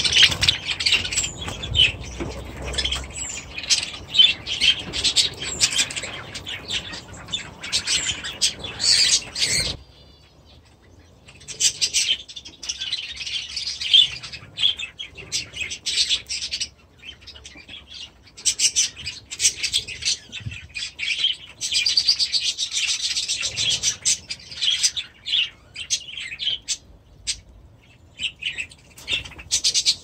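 A flock of small aviary birds chirping and calling busily, many rapid high-pitched notes overlapping. The chatter drops out for a moment about ten seconds in, then resumes in bursts.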